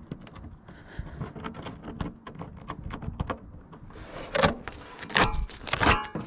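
A hand tool and rubber windshield gasket being worked against the glass edge: small clicks and scrapes, then several louder rubbing strokes with short squeaks near the end.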